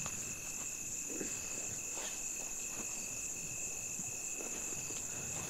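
Crickets chirping in a steady night chorus: two unbroken, high-pitched trills, with a few faint knocks underneath.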